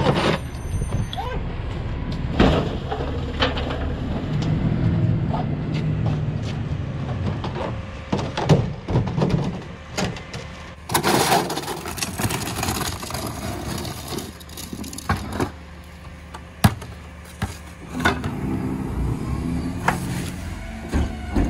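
Rear-loader garbage truck idling while yard waste, bags and cans are thrown and banged into its hopper, with scattered knocks and thuds. Near the end the truck's cart tipper lifts a cart, with a rising hydraulic whine.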